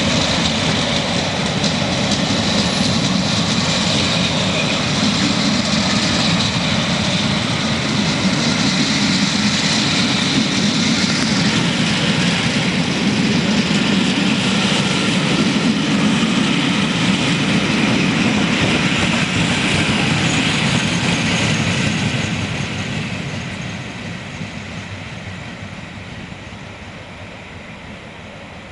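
The coaches of a Class 47 diesel-hauled passenger train rolling past, a steady rumble of wheels on rail. The sound fades over the last several seconds as the end of the train passes and draws away.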